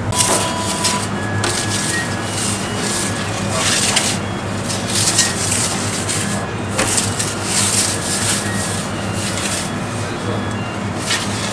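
A metal pizza peel scraping and sliding over the stone floor of a wood-fired oven, in several short rasps, over a steady low hum.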